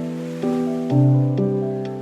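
Background music: a calm, slow instrumental with sustained chords, new notes every half second or so and a deep bass note coming in about a second in.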